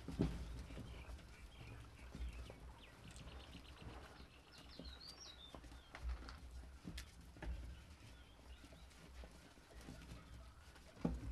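Four-week-old Rottweiler puppies chewing and tugging at raw chicken held out by hand, with scattered short clicks and smacks.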